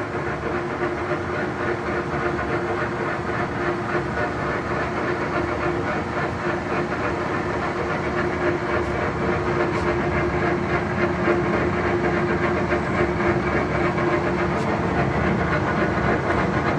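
Standard Modern 2040 engine lathe running with its spindle at 337 rpm: the 20 hp motor and headstock gears give a steady mechanical whir with a constant hum.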